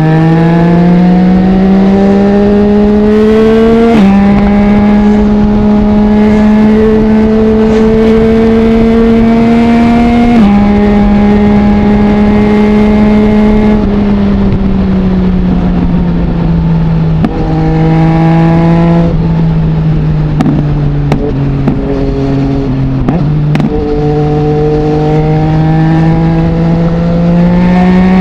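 Yamaha MT-09's 847 cc inline-three through an Akrapovic full exhaust with no dB killer, accelerating with its pitch rising and dropping at gear changes about four and ten seconds in. It holds steady, then falls away as the rider slows, with a few sharp pops while off the throttle, before pulling away again near the end.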